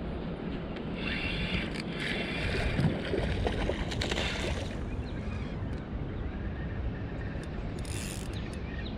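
Spinning reel being cranked, a steady whir lasting about four seconds from a second in, over a constant low rush of wind and water.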